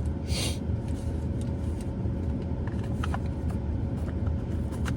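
Steady low rumble of a car engine idling, with a brief rustle about half a second in and a few light clicks later on.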